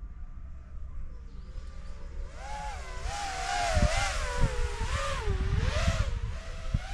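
FPV racing drone's motors and propellers whining, the pitch wavering up and down with the throttle; the whine comes in about two seconds in. A low wind rumble on the microphone runs underneath.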